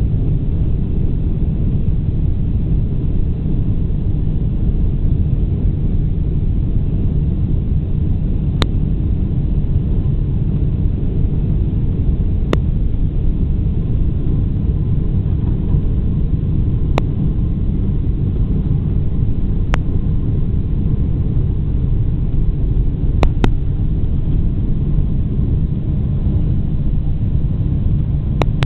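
Boeing 747-400's four turbofan engines at takeoff thrust, with the rumble of the takeoff roll, heard inside the cabin as a loud, steady low rumble. A few brief sharp knocks stand out, two of them in quick succession.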